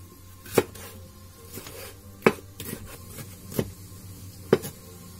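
Kitchen knife chopping a green pepper on a wooden cutting board: irregular knocks of the blade on the board, a few sharp ones among lighter taps.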